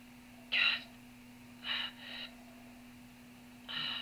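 A frightened man gasping for breath in short, sharp breaths: a loud one about half a second in, two fainter ones in the middle and another near the end. A steady low hum runs underneath.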